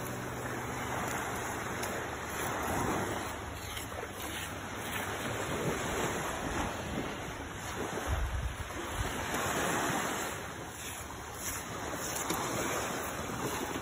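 Small waves breaking and washing up on a sandy shore, the surf swelling and easing every few seconds. Wind buffets the microphone, with a gust rumbling about eight seconds in.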